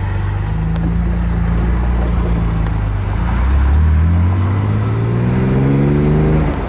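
1957 Aston Martin DB2/4 Mark III's straight-six engine heard from inside the cabin while driving. It runs steadily, then accelerates with its pitch climbing for about three seconds, and near the end it falls away briefly and starts climbing again.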